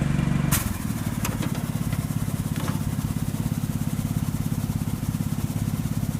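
Engine idling steadily with an even, rapid pulse, and a couple of sharp clicks about half a second and just over a second in.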